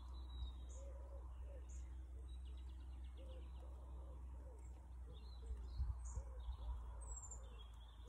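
Faint garden birdsong from several birds: high chirps and whistled phrases, with a repeated series of short low arched notes. About two and a half seconds in, a woodpecker drums briefly, a quick run of rapid taps. A low steady rumble lies underneath.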